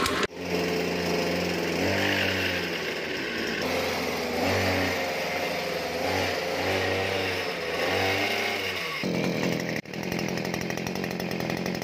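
A small engine-driven power tool running, its pitch rising and falling as it is revved, with a couple of abrupt cuts near the end.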